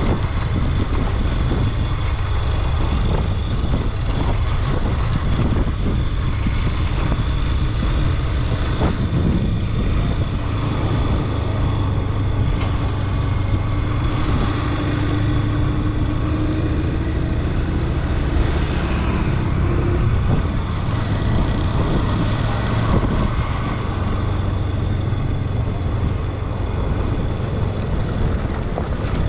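Motorcycle riding along a dirt road, its engine running steadily under a loud, even rush of road and wind noise.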